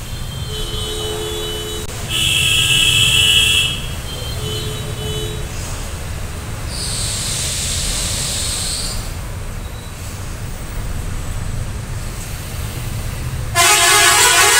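Road traffic: a steady low rumble with vehicle horns honking, one sounding in the first few seconds and loudest around two to three seconds in, a shorter one soon after, and a loud horn starting near the end. A high hiss comes about seven seconds in.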